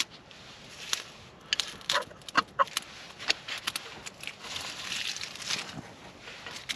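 A ferro rod scraped hard with a knife several times in quick succession, throwing sparks onto a pile of dry wood shavings. The shavings catch and crackle as they flare up.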